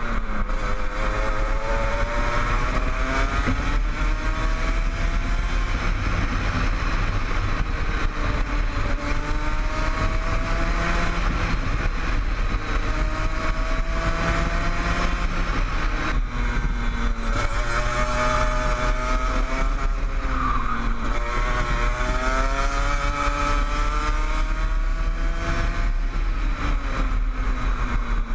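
Kart engine heard from the driver's seat at racing speed, its pitch climbing on the straights and dropping off into the corners, over and over through the lap.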